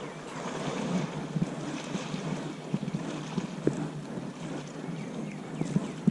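Wind buffeting the microphone, with water lapping and tapping irregularly against a kayak hull.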